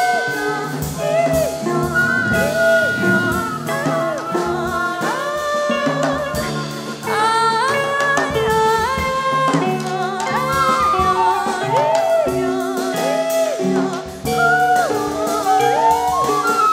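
Band music with singing and a drum kit, with notes bending up and down in pitch throughout.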